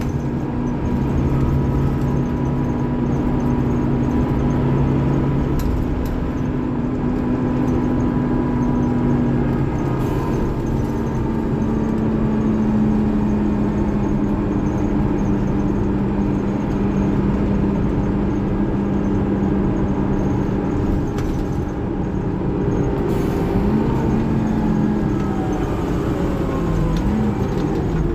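Scania K360IB bus's DC13 inline-six diesel engine running steadily as the bus drives, with road noise. The engine note steps down slightly about ten seconds in and shows small rises and falls near the end.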